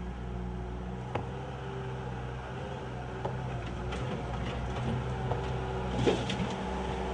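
Bobcat skid-steer loader's engine running steadily while it works on the old concrete driveway, with a few sharp knocks and clanks: one about a second in, one near three seconds and two close together around six seconds.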